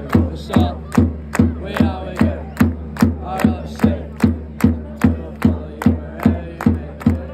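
Stadium crowd chanting and clapping to a steady beat, about two and a half beats a second.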